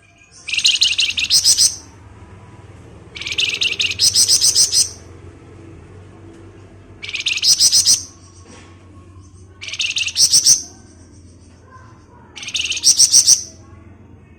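A flamboyan songbird gives its 'ngebren' song: five bursts of rapid, high, tightly packed trilling notes, each about a second long and several seconds apart, over a faint low hum.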